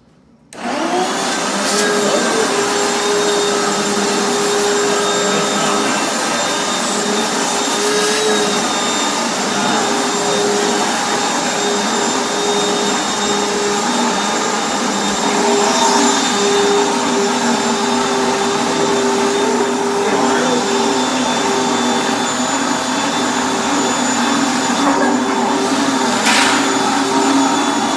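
Vacuum cleaner switching on about half a second in, rising quickly to speed, then running steadily as it sucks built-up dust off a refrigerator's clogged condenser coil. A second, lower note joins its hum about halfway through.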